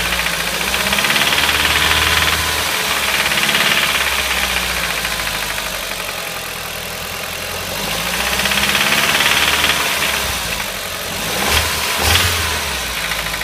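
Audi TT 225's 1.8-litre turbocharged four-cylinder engine running, with a fast, steady ticking over the engine note: the unexplained ticking noise. The sound swells louder twice, and two sharp knocks about half a second apart come near the end.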